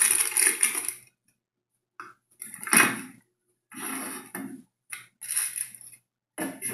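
Unpacking noises: packaging rustling and small accessories being handled, in irregular bursts, with a sharper knock about three seconds in.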